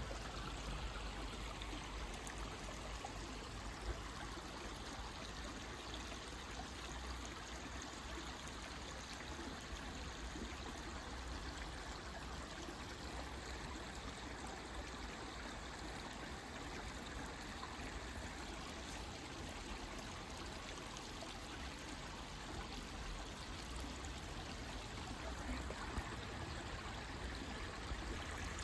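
Forest stream flowing steadily with a constant rush and trickle of water.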